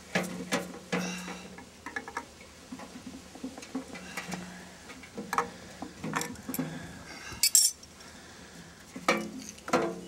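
A metal hand tool clinking and scraping against the sheet-metal squirrel-cage blower wheel and housing of a furnace, in irregular knocks and rattles, with a louder clatter about two-thirds of the way through and more knocks near the end as the housing is handled.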